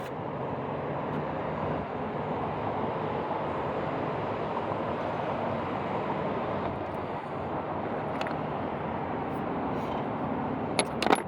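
Steady hum of road traffic, with a few light clicks near the end.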